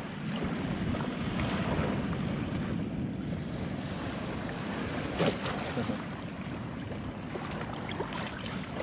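Gentle lapping of shallow sea water around a wader's legs, with wind buffeting the microphone. A single sharp knock comes about five seconds in.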